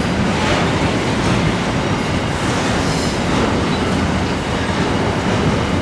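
Empty grain hopper wagons rolling past, a steady loud noise of steel wheels on rail with faint wheel squeal at times.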